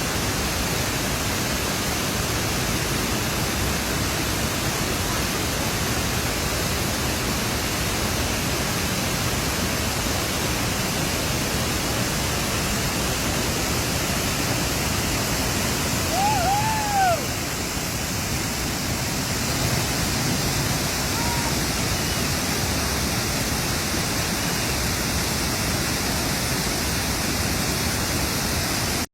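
Waterfall: a steady, loud rush of falling water. About halfway through, a brief high call rises and falls over the roar.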